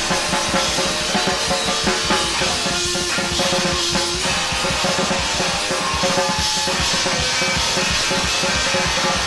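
Rock band playing an instrumental passage live, the drum kit prominent with steady bass drum and snare hits under sustained guitar notes.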